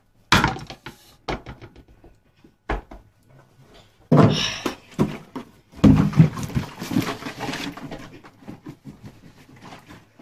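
Kitchen handling noises: a frying pan knocked down onto a glass-ceramic hob, then a plastic bag rustling and clattering over the stove. A few sharp separate knocks come first, a rustle follows about four seconds in, and denser clatter comes around six to eight seconds.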